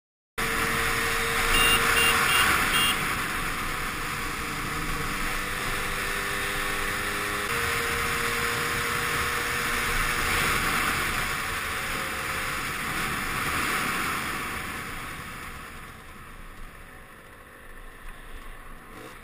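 Small motorbike riding along a road: engine running under steady wind noise on the camera, dropping away and getting quieter near the end as the bike slows down. Four quick short beeps sound about two seconds in.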